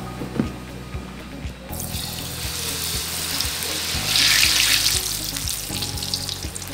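Batter-coated catfish going into hot oil: a sudden loud sizzle bursts in about two seconds in, swells loudest around four seconds in, then settles into steady crackling frying.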